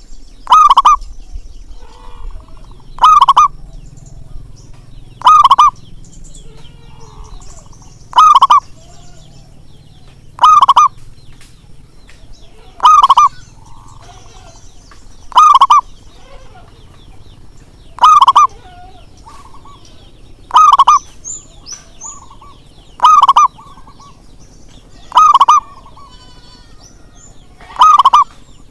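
Zebra dove (perkutut) calling: a short cooing phrase repeated about every two and a half seconds, twelve times, with faint chirps of other birds in between.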